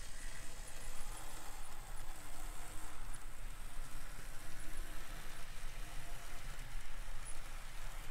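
Model trains running on a layout: a steady rolling rumble of wheels and motors on metal track, with a few faint clicks.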